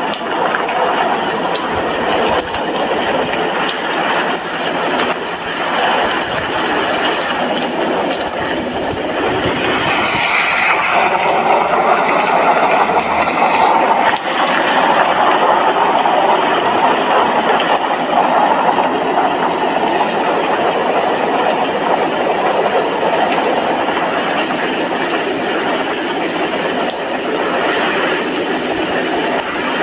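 Steady rain falling, heard through an apartment window as an even hiss. It swells and brightens for a few seconds about a third of the way in, then settles back.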